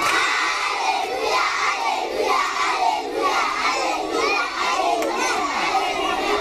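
A large crowd of young schoolchildren, many voices at once, loud and overlapping with no pauses.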